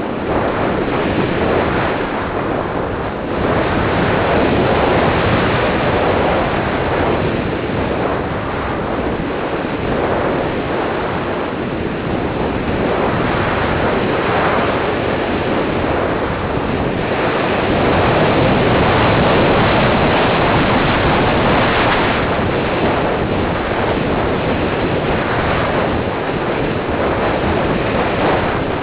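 Airflow rushing over the onboard camera microphone of a radio-control slope glider in flight: a loud, steady rush that swells about three seconds in and again past the middle, rising and easing with airspeed.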